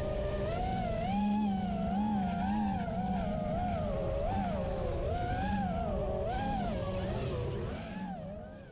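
FPV quadcopter motors whining, the pitch rising and falling quickly with the throttle, fading out near the end.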